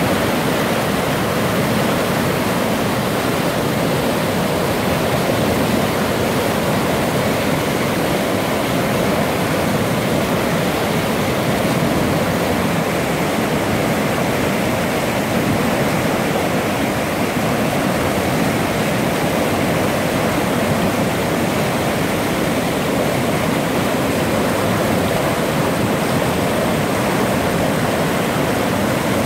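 The Cinqueta, a Pyrenean mountain river swollen with snowmelt, rushing over rocks and rapids. The white water makes a loud, steady rush.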